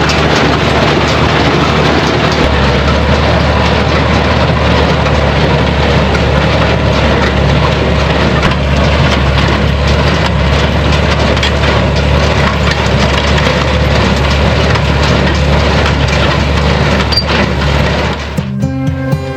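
Farmall 460 tractor pulling a New Holland 268 small square baler through hay: a steady engine hum under the baler's loud crunching and cracking as it packs hay. It cuts suddenly to music near the end.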